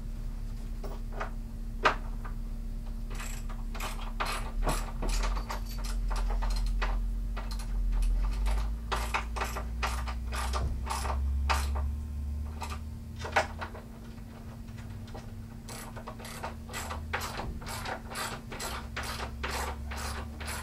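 Ratchet wrenches clicking in quick runs as nuts are tightened onto the bolts joining the wooden loft bed's rails to its posts, over a steady low hum.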